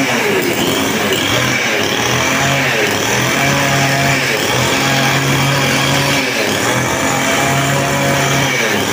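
A 62 cc two-stroke chainsaw running at high revs, the engine held up for a second or two at a time and then dipping and picking up again several times. It is being run to test the chain oiler after a clogged oil filter was cleaned.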